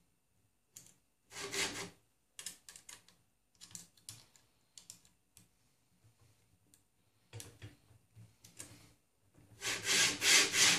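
Brief scrapes and clicks from hands and a small tool working on the printer's X carriage. About nine and a half seconds in, the carriage is slid along the smooth steel rods on its linear bearings, giving a louder, longer rubbing rattle as the builder checks that it moves freely without wobbling.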